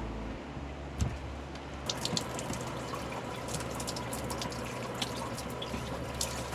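Water running and dripping, with many small splashes and trickles and a single knock about a second in.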